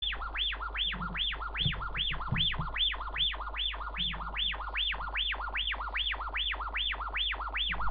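Electronic warbling tone from a smartphone's speaker, sweeping quickly up and down, about two and a half sweeps a second, evenly repeated.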